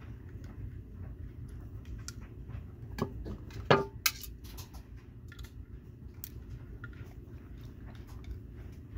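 A small screwdriver clicking and scraping as it backs screws out of a hard plastic diecast display base, with a few sharper plastic clacks about three to four seconds in.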